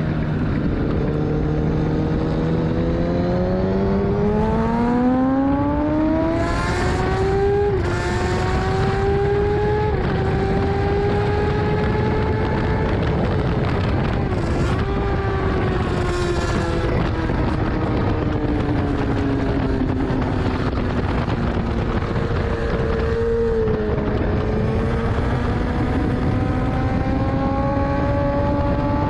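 2014 Kawasaki ZX-10R's inline-four engine heard on board at track speed, with wind rush over it. The revs climb hard over the first several seconds, with brief dips as it shifts up, then hold. They fall away gradually through the middle as the bike slows, and climb again near the end.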